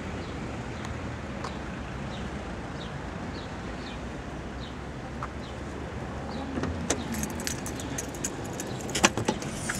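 Car keys jangling with a few sharp clicks, mostly in the last few seconds, over a steady outdoor background hum.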